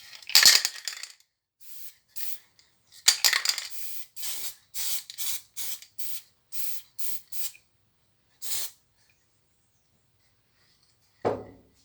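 Aerosol can of black spray paint hissing in bursts as the repaired steering wheel is coated: two longer sprays of about a second, then a run of short quick puffs.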